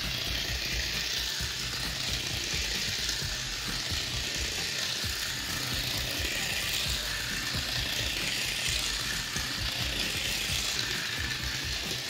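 Small battery-powered toy car running round a loop of ridged plastic flexible track: a steady whirring rattle of its motor and of its wheels clicking over the track segments.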